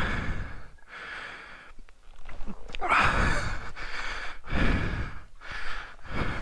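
A man breathing hard, with heavy breaths in and out about once a second. He is out of breath from kicking over a motorcycle in heavy riding gear.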